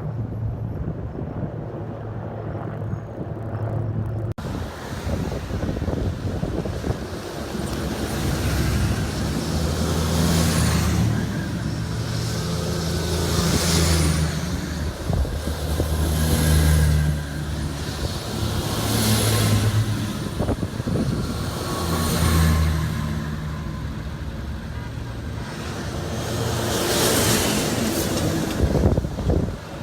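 A convoy of military trucks driving past one after another. Engine rumble and tyre noise swell as each vehicle passes, roughly every three seconds, and the sound changes abruptly about four seconds in.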